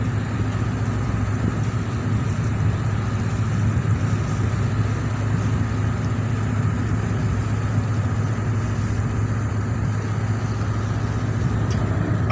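Marine diesel engine running steadily, a deep even drone heard from on board while the vessel comes alongside a ship.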